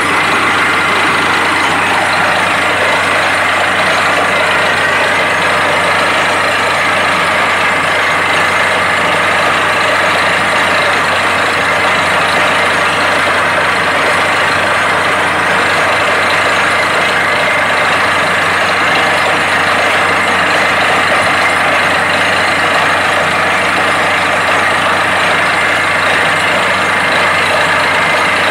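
Truck-mounted compressor borewell drilling rig running at a loud, steady level. Its engine and air compressor drone while compressed air blows water and rock cuttings out of the bore.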